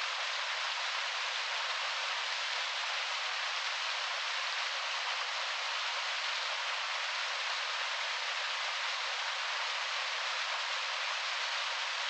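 Small waterfall cascading over rocks, a steady, even rush of falling water, hissy and bright with no deep rumble.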